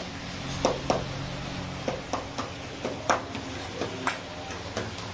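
A steel ladle clinking and knocking against a wide steel serving pan: irregular sharp clinks, a few a second, over a low steady hum.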